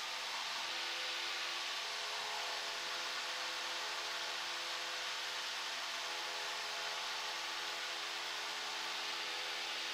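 Cessna 172 Skyhawk's engine and propeller running steadily in the climb-out, heard through the intercom audio feed as an even hiss with faint steady engine tones underneath.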